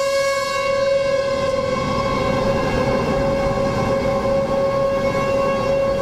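Outdoor tornado warning siren sounding a steady, unbroken tone that holds one pitch, with a rough low rushing noise underneath. The siren is the alert for a tornado warning.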